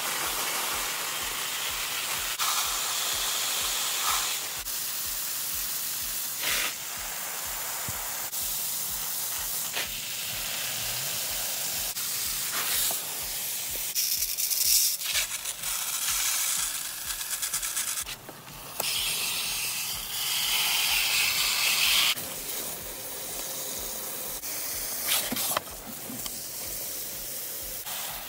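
Water spraying from a garden hose spray nozzle onto potted plants and their soil: a steady hiss that swells and fades as the spray moves from pot to pot, with a brief break about two-thirds of the way through.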